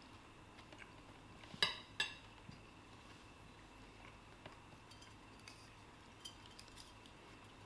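Cutlery clinking against a plate twice, close together, about a second and a half in, then only a few faint small clicks.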